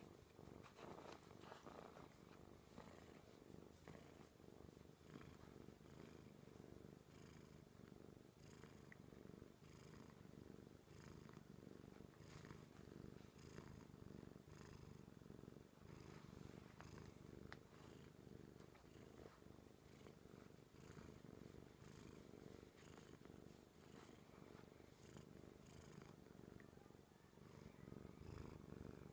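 Grey tabby cat purring softly and steadily while its head is stroked, a sign that it is content.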